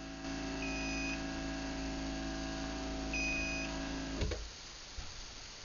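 Craftsman belt-drive garage door opener running on battery backup after being unplugged: a steady hum with two short high beeps about two and a half seconds apart, the beeps signalling battery operation. The hum cuts off with a click about four seconds in.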